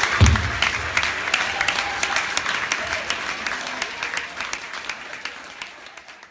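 Audience applause after a song, many hands clapping with a few cheers. It dies away steadily over several seconds.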